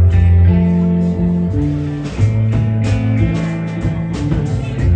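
Live band playing a song: electric guitars over deep bass notes and drums, amplified through the room's PA.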